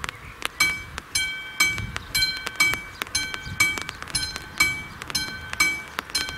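Level crossing's classic electromechanical warning bell starts ringing about half a second in, struck about twice a second: the crossing has activated for an approaching train.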